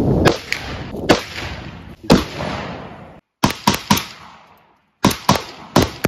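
Gunshots at an outdoor range, each sharp crack trailing off in a short echo. Single shots come about a second apart, then quick strings of three or four shots, broken by abrupt cuts between clips.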